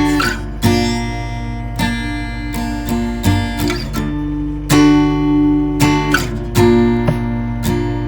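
Guitar music: chords strummed about once a second, each left ringing.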